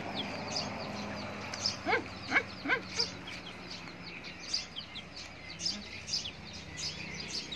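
Baby macaque squealing in short rising cries, four loud ones close together about two seconds in, amid a scatter of quick high chirps.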